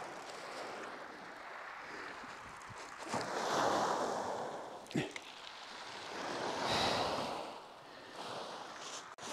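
Waves breaking and washing up a shingle beach, swelling and fading twice in surges a few seconds apart, with a sharp click about five seconds in.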